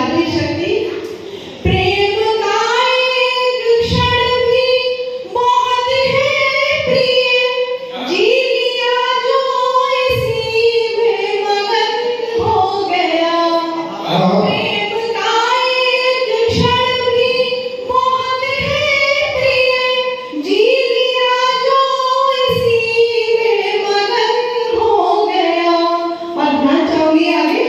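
A woman singing a Hindi love song (geet) solo into a hand-held microphone, with no instruments, holding long notes that slide between pitches and pausing briefly for breath between lines.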